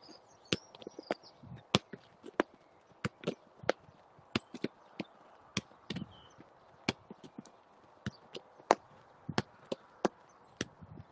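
Football being passed back and forth quickly in a side-to-side passing drill: a run of sharp kicks and taps of the ball, about two a second.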